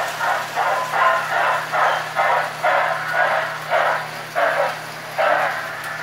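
A 78 rpm freight-train sound-effects record playing on a Victor 4-3 Orthophonic acoustic phonograph. The locomotive chuffs rhythmically, about two beats a second, thin and without bass. The beats slow and space out, with the last one about five seconds in.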